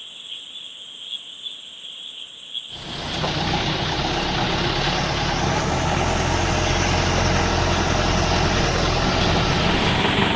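Crickets chirping, then about three seconds in a safari jeep's engine comes in suddenly and runs steadily, drowning out the crickets.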